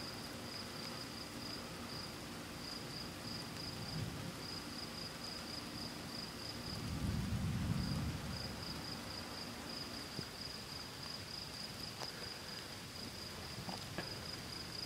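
Crickets chirping in a steady high trill, with a low rumble of distant thunder swelling and fading about seven seconds in.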